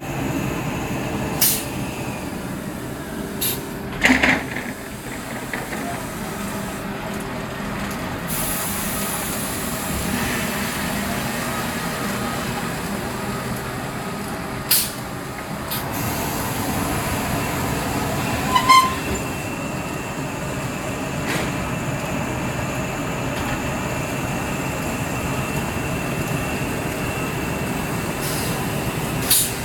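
Steady running noise of a silicate-board conveyor line and its automatic spacing machine, with a handful of sharp clacks as boards are handled and a brief high hiss about eight seconds in.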